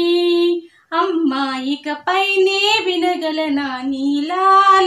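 A woman singing solo and unaccompanied, in long held and sliding notes, with a short break just under a second in.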